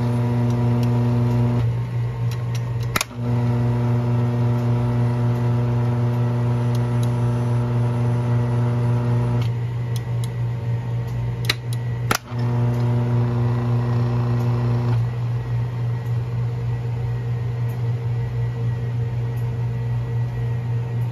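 Espresso grinder's electric motor running after reassembly: a steady low hum with a pitched whine over it that cuts in and out three times, each return preceded by a sharp click.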